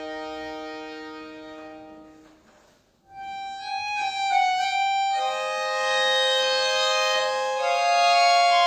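Solo accordion playing a slow piece. A held chord fades away to a brief pause about three seconds in. A new phrase then enters with a few moving notes on top and settles into sustained chords that swell louder.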